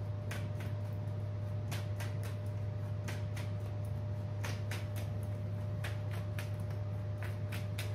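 A deck of tarot cards being shuffled by hand, giving a scattered series of short, light card clicks and slaps. A steady low hum runs underneath.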